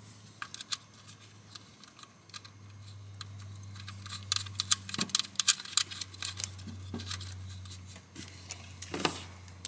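Small metallic clicks and taps as a washer and nut are threaded by hand onto an alternator's positive terminal stud, over a low steady hum.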